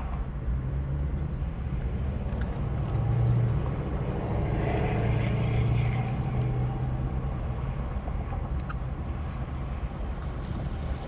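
Steady low vehicle rumble, louder for a few seconds in the middle, with a few faint clicks.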